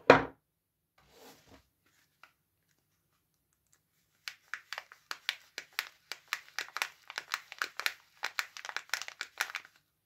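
A bar of soap set down on a wooden table with a sharp knock. From about four seconds in, a wrapped soap bar's plastic wrapper crinkles in quick crisp crackles as fingers squeeze and turn it.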